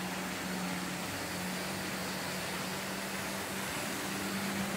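The electric motor of a Lima OO gauge Class 60 model diesel locomotive runs at a steady speed on half power, giving an even hum with a low steady tone. The motor is cold from little use.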